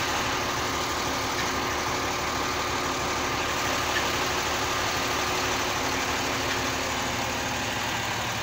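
Crane's engine running steadily while hoisting a chiller unit.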